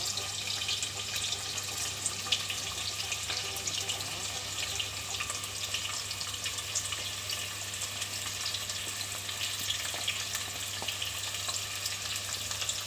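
Chopped onions frying in hot oil in a pressure cooker: a steady sizzling hiss dotted with small crackles.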